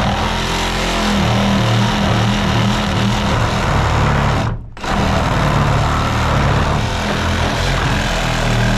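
A power tool running steadily under load. It cuts out for a moment about halfway through, then starts again.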